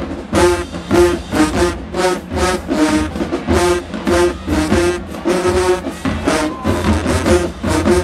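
Marching band playing in the stands: trumpets, trombones and sousaphones on a brassy, rhythmic tune with short accented hits about twice a second over a low bass line, drums underneath.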